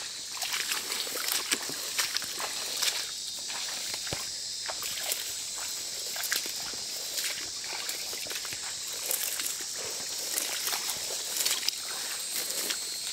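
Footsteps pushing through dense grass and brush, with stems and leaves swishing and crackling in a quick irregular run, over a steady high hiss.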